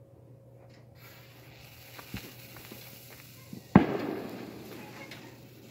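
Small consumer firework on a table: the lit fuse hisses faintly, then one sharp bang about four seconds in, followed by a hissing tail that fades.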